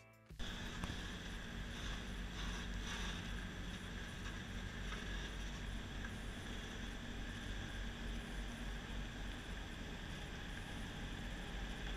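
Peterbilt 389 semi truck's diesel engine running steadily at low revs, starting about half a second in, with a steady hiss over it.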